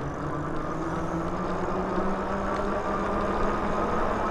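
Rad Rover e-bike's rear hub motor whining under power as the bike gathers speed, the whine rising slowly in pitch, over a low rumble of tyres and wind.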